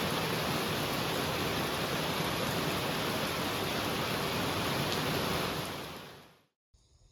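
Heavy rain: a dense, steady hiss that fades out over about a second near the end, giving way to faint insect chirping.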